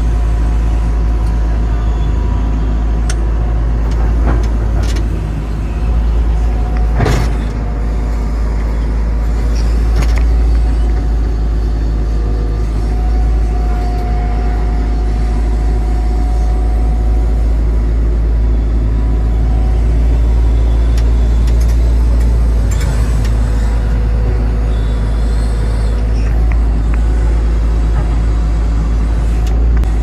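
Tata Hitachi 120 excavator running steadily under digging load, heard from inside the operator's cab: a constant engine drone with a steady whine, broken by a few sharp knocks as the bucket digs and dumps soil.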